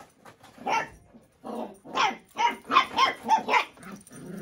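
Puppies barking: a run of about eight short barks that come faster in the second half.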